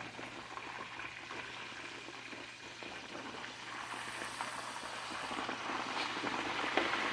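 Flour-battered pork chops frying in hot oil in a pan: a steady sizzle with fine crackles and pops, growing slightly louder near the end.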